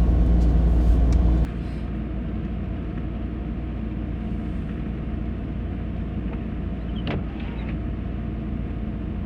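Steady low rumble of a car on the move, heard from inside the cabin. About a second and a half in it drops suddenly to a quieter steady rumble, and a brief click comes near the end.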